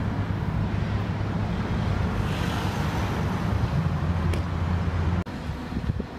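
City street traffic: a car driving past over a low rumble of wind on the microphone. The sound cuts off abruptly about five seconds in, leaving a quieter outdoor background.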